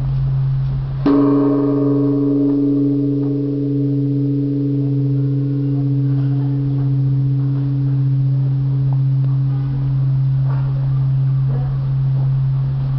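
Large Japanese temple bell (bonshō) struck once, about a second in, with a wooden beam. A deep hum is already sounding; the strike adds higher ringing tones that slowly fade, and the loudness wavers gently.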